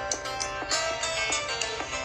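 A ringtone on a Nokia 5610 XpressMusic playing: a melody of short, sharply struck notes, a few to the second.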